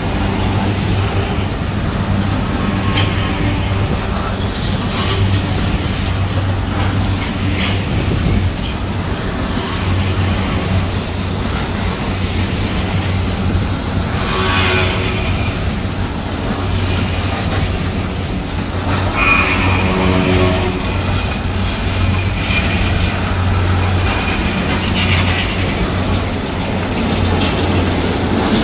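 Slow-moving engineering train of hopper wagons rolling past, with a steady rumble and low hum from wheels and running gear. Twice, about halfway through and again a few seconds later, there are short metallic squeals from the wagons.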